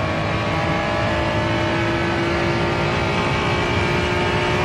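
Honda NSX's 3.0-litre V6 engine pulling hard under throttle, its steady high note climbing slowly in pitch through the gear. It is heard from inside the cabin.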